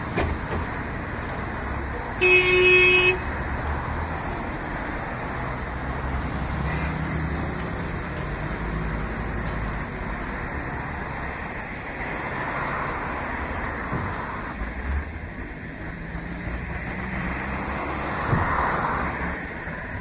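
Engine and road noise inside a moving city bus, with one vehicle horn honk lasting about a second, about two seconds in.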